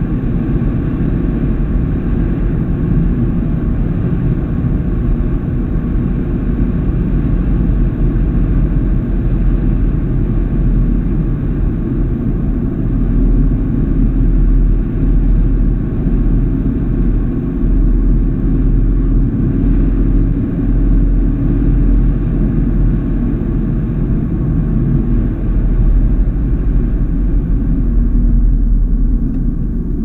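Car cruising at steady road speed, heard from inside the cabin: a continuous low rumble of tyres and engine.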